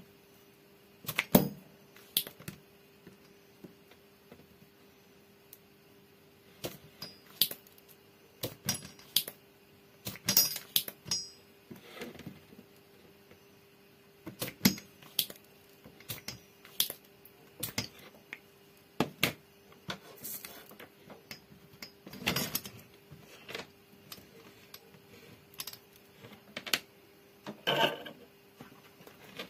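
Irregular sharp clicks and knocks from desoldering work on an amplifier circuit board: a spring-loaded desoldering pump snapping and tools tapping against the board, over a faint steady hum.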